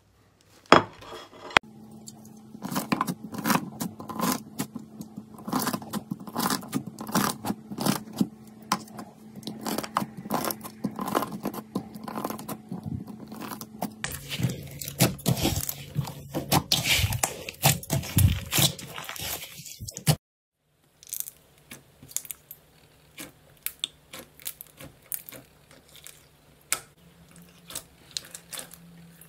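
Slime being squished, stretched and pressed by hand: dense crackling with sticky popping clicks. There is a brief break about twenty seconds in, and the clicks are quieter after it.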